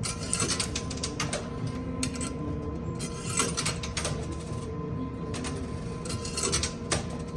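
Coins clattering in a coin pusher machine: quarters dropping in and clinking against the pile as the pusher shelf moves, in quick irregular clicks. A faint steady tone runs underneath.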